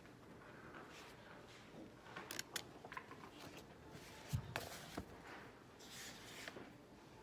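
Paper handling at a desk: the pages of a thick workbook rustling and being turned, with a few light taps and clicks, a soft thump a little after four seconds in, and a page flipped over about six seconds in.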